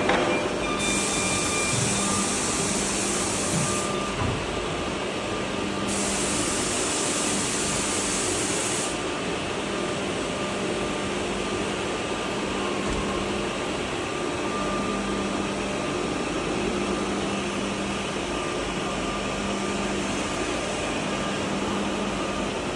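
Edge banding machine line running steadily with a low machine hum, and two stretches of high hissing in the first nine seconds.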